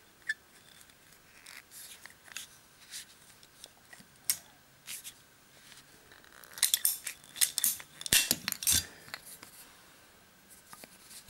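Handheld ratchet plastic-pipe cutter clicking and scraping as its blade is worked down bit by bit through white plastic plumbing pipe while the pipe is turned. A run of louder clicks comes about six and a half to nine seconds in, and the cut pipe and plastic inserts are handled near the end.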